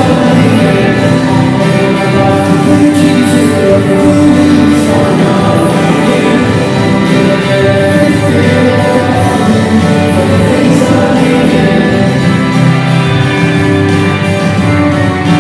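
Christian worship song for children playing: guitar-led band music with singing and a steady beat.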